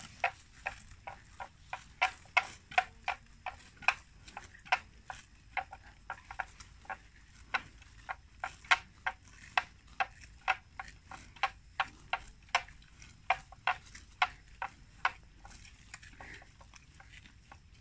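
Water buffalo cropping grass: a rapid run of crisp tearing snaps, about two or three a second, that thins out and stops near the end.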